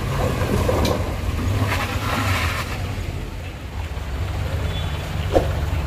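Vehicle engines running steadily with a low rumble, and a single short knock near the end.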